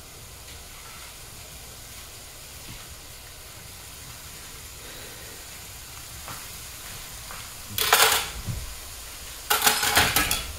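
Diced onion and bell pepper beginning to sizzle in a nonstick skillet as it heats over a gas burner: a low, steady hiss. Twice near the end, a short one and then a longer one, the sizzling rushes up louder as the vegetables are moved in the hot pan.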